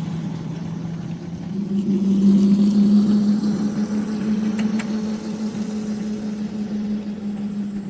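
Ride-on backyard locomotive running steadily, a low drone that rises in pitch and gets louder about a second and a half in, then holds steady. A couple of short sharp clicks near the middle.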